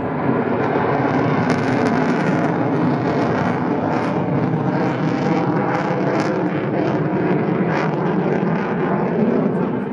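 Belgian F-16 Fighting Falcon's single jet engine, a loud, steady rush of jet noise as the fighter flies through its display manoeuvres overhead.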